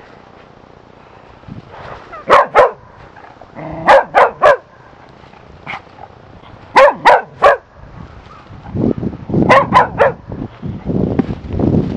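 Cocker spaniel puppy barking in four quick bursts of two or three sharp barks each, a couple of seconds apart.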